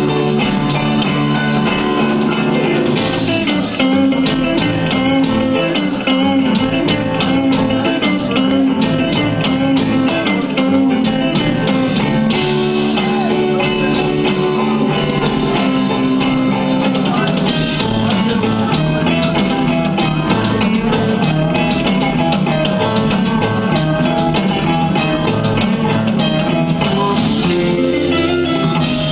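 Live rock band playing: electric guitar over a drum kit, with runs of quick, even cymbal strokes through much of the passage.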